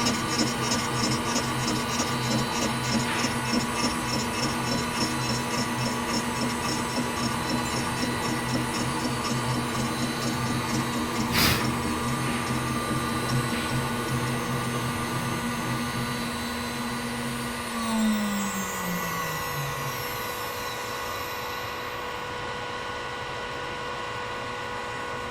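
CNC machine spindle running at a steady high speed with a faint pulsing hum and one sharp click about eleven seconds in. About eighteen seconds in, the spindle shuts off and winds down, its pitch falling away.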